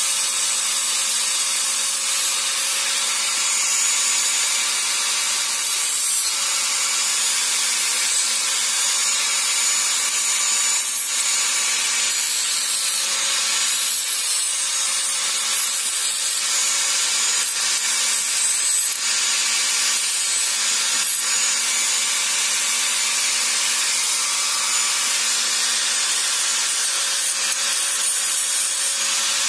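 Handheld electric angle grinder running steadily, its disc grinding a small steel part: a dense hiss over the motor's steady hum.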